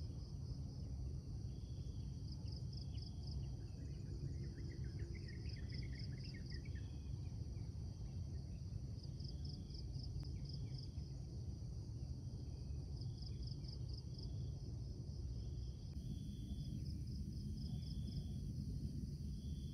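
Insects chirping in quick pulsed trains that come and go, with short calls repeating about every second and a brief bird warble about five seconds in, over a low steady rumble.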